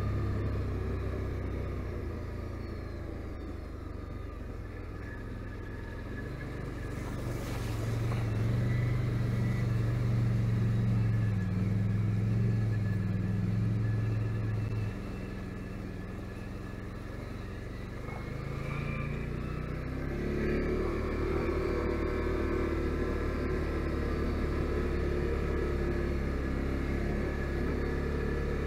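Can-Am Outlander 570 ATV's V-twin engine running while riding, the engine note swelling with throttle, falling away suddenly about halfway through as the throttle is let off, then picking up again a few seconds later.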